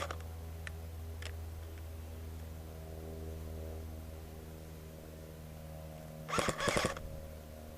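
A steady low mechanical hum, with a sharp click at the start and a quick run of five or six sharp clicks a little past six seconds in.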